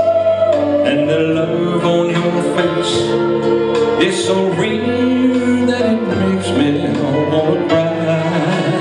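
Male vocalist singing into a handheld microphone over instrumental backing music, both amplified through a PA speaker.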